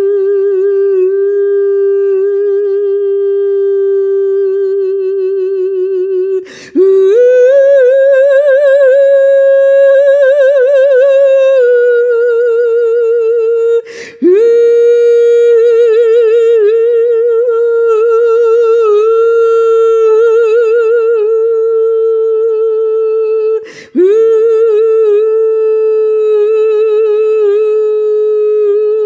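A woman's wordless sound-healing vocal toning: long held notes with a slow vibrato. It pauses briefly for a breath three times, and the pitch lifts to a higher note after the first breath before easing back down.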